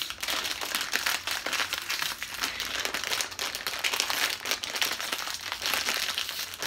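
A plastic cotton candy bag crinkling without pause as hands pull and twist at its top.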